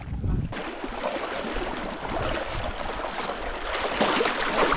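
Shallow river water splashing and rushing around feet wading across a rocky streambed, starting about half a second in.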